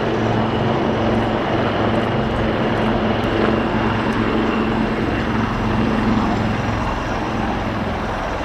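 AW159 Wildcat helicopters flying past low overhead: steady rotor and twin-turboshaft engine noise, easing slightly near the end.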